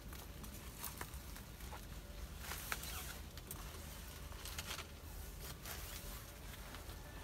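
Footsteps and rustling in dry leaf litter and twigs, a few soft crunches and light clicks spread through, with a short patch of rustling about two and a half seconds in.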